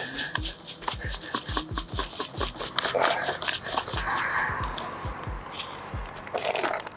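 Dry fishmeal groundbait being poured and handled in a container and bag: irregular rustling with many small clicks and soft knocks.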